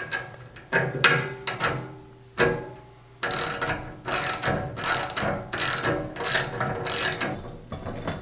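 Hand socket ratchet clicking as it tightens a nylock nut onto a bolt: a few uneven strokes at first, then a steady run of about two ratchet strokes a second from about three seconds in.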